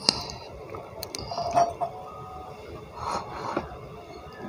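A few light knocks and clinks of tableware being handled close to the microphone, with the loudest knock right at the start, one brief ringing clink about a second and a half in, and a soft rustle about three seconds in.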